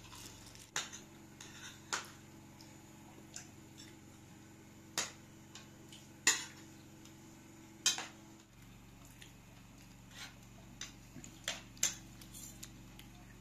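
Metal spoons and forks clinking and scraping against ceramic plates as people eat, in scattered separate clicks, the loudest about six and eight seconds in, over a faint steady low hum.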